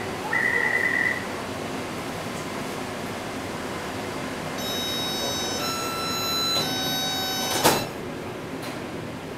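Taipei Metro C381 train doors closing: a short electronic beep, then a chime of a few clear tones stepping up and down in pitch, cut off by one sharp thump as the sliding doors shut.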